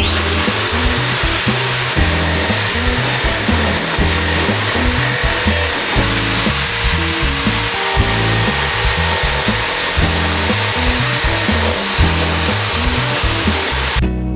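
Electric drill used as a small wood lathe, spinning up at the start and then running steadily with a motor whine while a tool scrapes against the turning wood. Guitar music continues underneath.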